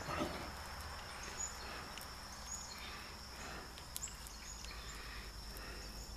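Steady high-pitched insect chorus, like crickets trilling, with low background hum and a few faint ticks of handling noise.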